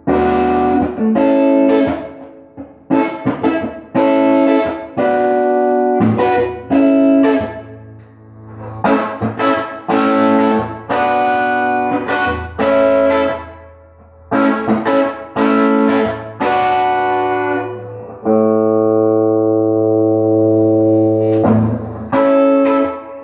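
Gibson Les Paul with Classic 57 pickups strumming chords through an EarthQuaker Devices Ghost Echo reverb pedal into a Fender Pro Junior III tube amp. Most chords are cut short with brief gaps between them; one chord near the end is left ringing for about three seconds.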